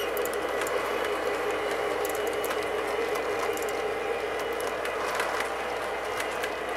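Lionel model train locomotive running along the track: a steady motor and wheel hum with scattered light clicks.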